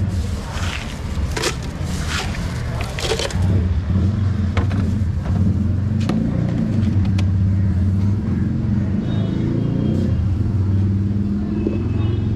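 Ice cubes clattering as they are scooped by hand from a cooler into a plastic blender jar, a quick run of sharp clinks in the first few seconds and a few single clicks later, over a steady low rumble like road traffic.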